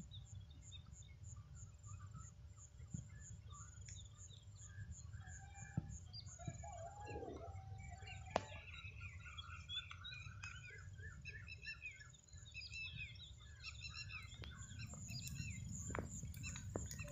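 Faint dawn chorus of several birds: many short chirps and warbling calls overlapping, thickening a few seconds in. Behind them runs a steady high insect trill, with a few sharp clicks.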